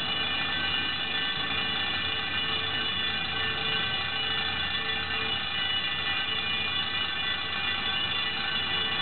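Building fire alarm ringing continuously, a steady, unbroken ring of many held high tones.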